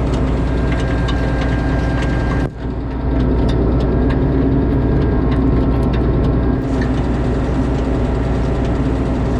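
An engine runs steadily under scattered sharp metallic clicks, typical of a ratchet wrench working on the combine's elevator chain. The level dips briefly about two and a half seconds in.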